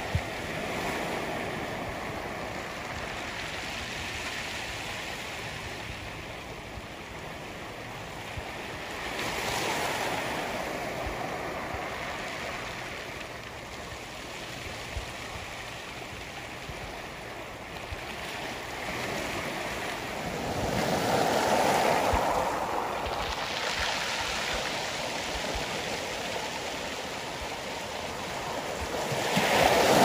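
Surf breaking and washing over a pebble beach, mixed with a shallow stream rippling across the stones. The surf swells and fades several times and is loudest about two-thirds of the way in.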